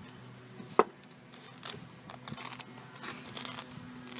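Tools being handled and taken out of a tool bag: a sharp click about a second in, then rustling and light knocks.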